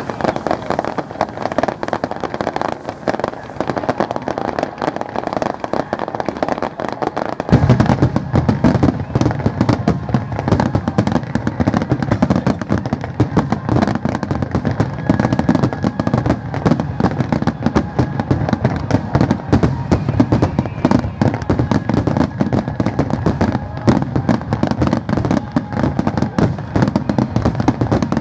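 Aerial fireworks barrage: many shells bursting in rapid succession, with crackling between the bangs. The deep booms become much fuller about seven seconds in.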